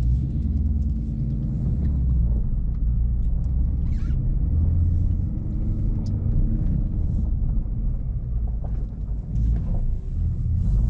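2015 Mustang GT's 5.0-litre V8 and road rumble heard from inside the cabin while driving off, deep and steady. The level dips briefly about nine seconds in.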